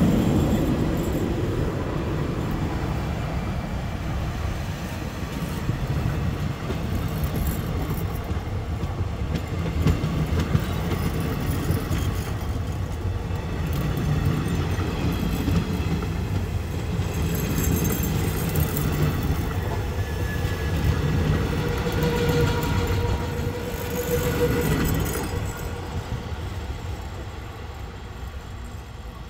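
Passenger coaches of a train rolling past on the rails with a steady rumble, then fading over the last few seconds as the train draws away.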